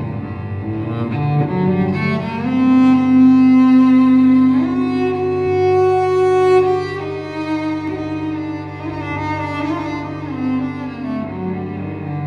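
Bowed cello playing long held notes over a steady low note, several pitches sounding at once. About four and a half seconds in it slides up into a higher held note, and it is loudest in the first half.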